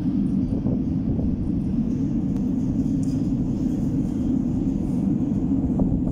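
Steady low rumble of a Moscow-2020 (81-775/776/777) metro train approaching through the tunnel before it comes into view, with a few faint clicks.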